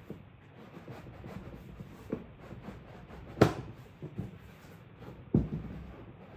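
Packaging and parts being handled during unboxing: scattered rustles and light clicks, with two sharp knocks about three and a half and five and a half seconds in, the first the loudest.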